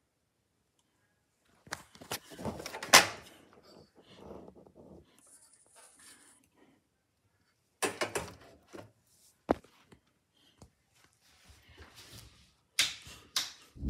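Handling noise from a caged work light being picked up and moved: knocks and rattles of the wire cage and lamp body, with a sharp click about two-thirds of the way through.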